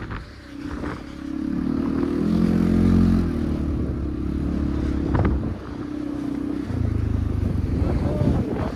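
ATV engine revving up under throttle, loudest about three seconds in, then easing off and running on at lower revs.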